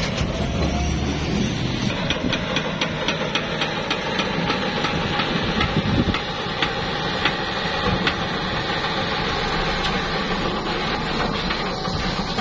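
Massey Ferguson tractor's diesel engine running steadily under load, with repeated short sharp clicks over the drone.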